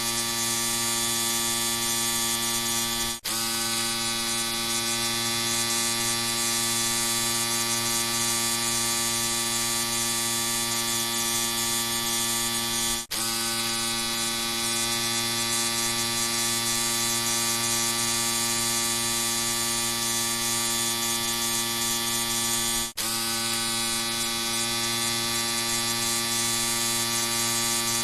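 Electric shaver running with a steady buzz. The buzz drops out for an instant three times, about ten seconds apart.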